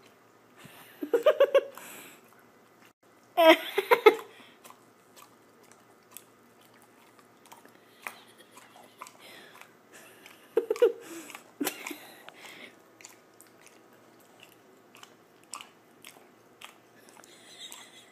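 A dog licking and smacking at peanut butter stuck in its mouth: many short wet clicks of tongue and jaws. Three louder short bursts of a voice stand out about one, three and a half, and eleven seconds in.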